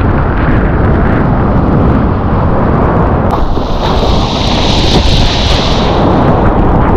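Surf kayak riding a breaking wave: loud, continuous rushing of whitewater mixed with wind buffeting the action camera's microphone. About three seconds in, a sharper hiss of spray thrown off the hull rises over the rush for a few seconds.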